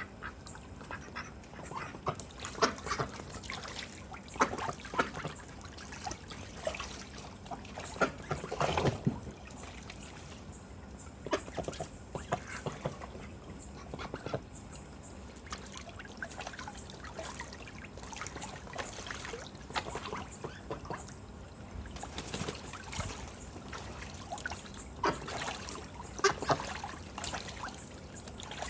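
White Pekin ducks quacking at irregular moments while splashing and trickling water in a tub.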